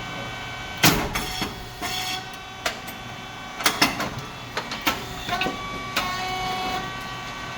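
SYP9002 rice cake popping machine running: a steady hum from its hydraulic pump motor, broken by a string of sharp cracks and clacks as the heated moulds work and the cakes pop out, the loudest about a second in.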